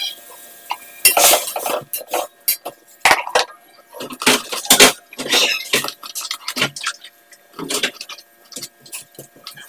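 Kitchen knife slicing raw beef and knocking on a plastic cutting board in irregular strokes, with scraping and light clinks.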